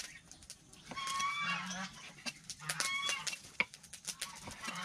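Cleaver knocking and tapping on a wooden chopping board as raw beef is sliced, with poultry calling in the background, loudest about a second in and again near three seconds.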